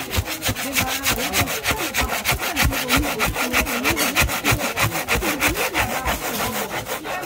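Metal spatula scraping and chopping fried rice against a flat iron griddle in fast, even strokes, about six or seven a second.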